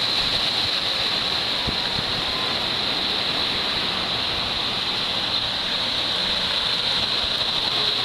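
Ocean surf breaking and washing up the beach, a steady rushing hiss.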